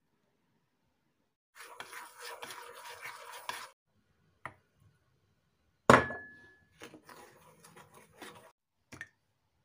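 Metal spoon scraping and stirring cocoa powder in a bowl, in two spells, with a single sharp clang of the spoon against the bowl about six seconds in that rings briefly, and a couple of light clicks.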